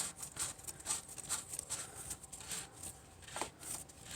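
A fuel filter being screwed onto its housing by hand: faint scraping and small ticks of the filter turning on its threads under the fingers.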